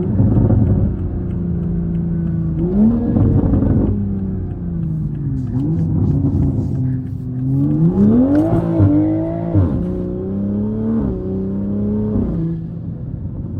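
2021 Toyota Supra's turbocharged engine, with catless downpipe and single-exit exhaust, under hard acceleration: the revs climb and fall several times, the biggest climb about eight seconds in, each climb ending in a sharp drop as the gears change.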